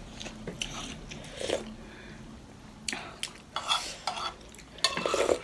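Metal spoons clinking and scraping on a soup bowl and plates during a meal of momos: scattered short clicks and brief eating noises, the loudest cluster near the end.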